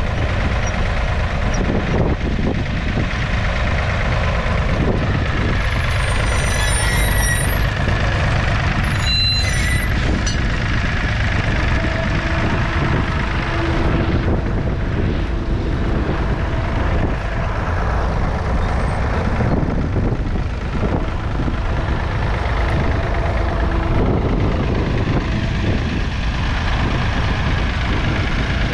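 1969 David Brown 780 Selectamatic's 2.7-litre three-cylinder diesel engine running steadily under load, pulling a two-furrow mounted plough through the ground. Between about six and ten seconds in, a few brief high whistling tones sound over the engine.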